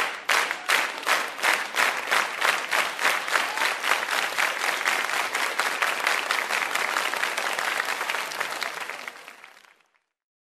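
Audience applause with the clapping falling into time, about three claps a second, over a denser spread of clapping, fading out near the end.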